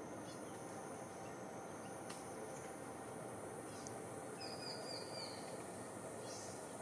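Tropical forest ambience: a steady hiss with a continuous high insect drone, and a bird's brief run of high chirps about four and a half seconds in.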